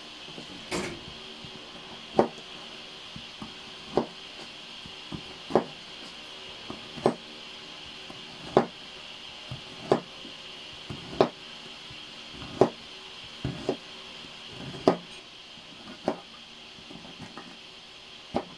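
Kitchen knife slicing a bitter gourd into rings on a plastic cutting board: a sharp knock each time the blade goes through and hits the board, roughly one every second and a half, over a steady faint hiss.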